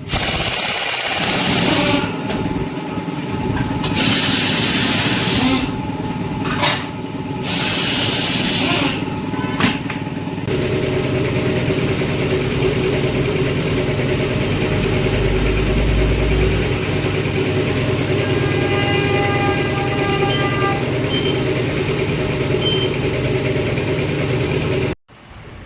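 Tyre-shop work noise: several loud hissing bursts, like compressed air, in the first ten seconds, then a steady mechanical hum that cuts off suddenly near the end.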